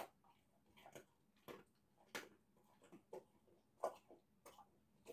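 A dog crunching small dry treats off a carpet: faint, irregular crunches about two a second, the loudest a little before four seconds in.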